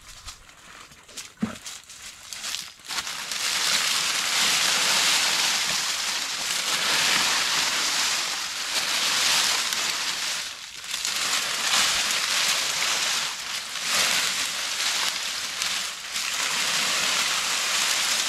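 Water splashing and sloshing in a continuous rushing wash that starts about three seconds in and swells and dips irregularly, after a few soft handling knocks.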